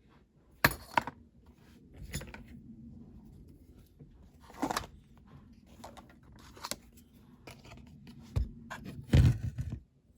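Small metal and plastic model parts being handled on a workbench: a series of sharp clicks and knocks, loudest near the end, over a low steady hum that cuts off just before the end.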